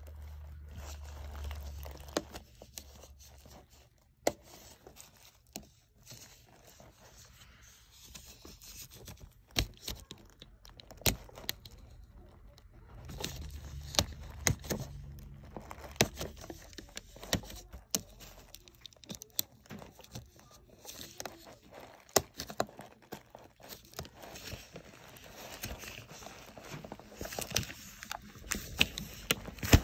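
Clear plastic shrink wrap on a picture frame being picked at, crinkled and torn off by hand: irregular sharp crackles and tearing, with scraping of fingers on the film.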